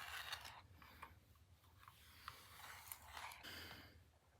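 Faint rustling of hair being handled and brushed during straightening, in two soft spells near the start and about three and a half seconds in, with a few light clicks.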